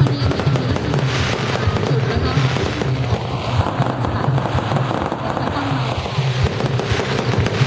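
Fireworks display: fountain fireworks hissing steadily, with many small sharp crackles and pops from bursting shells, over music playing in the background.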